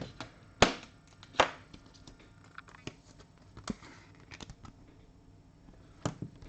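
Trading cards being handled and slid through the hand: two sharp card snaps in the first second and a half, then softer ticks and rustling, and another snap near the end.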